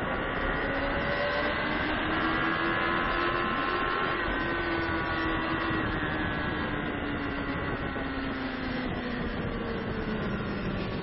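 Sport motorcycle engine running hard on a race track, heard from on board with wind rush over the microphone; the revs climb briefly about two seconds in, then fall slowly through the rest.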